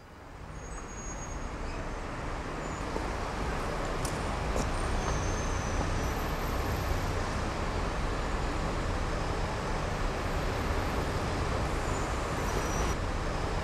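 Steady city street traffic noise from passing cars and buses, fading in over the first couple of seconds, with a few faint clicks about four seconds in.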